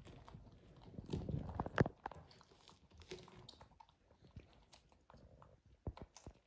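Close-up eating and fruit-handling sounds: soft chewing and smacking with scattered small clicks as sticky jackfruit flesh is pulled apart and eaten, with one sharper click a little under two seconds in.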